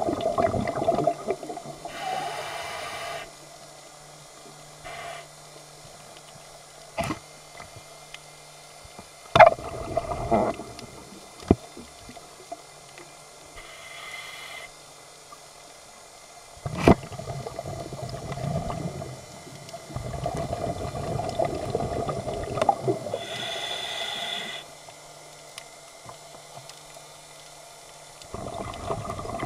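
Scuba diver's regulator breathing heard underwater: long stretches of exhaled bubbles alternating with short hissing inhalations. A few sharp clicks stand out, the loudest about nine seconds in.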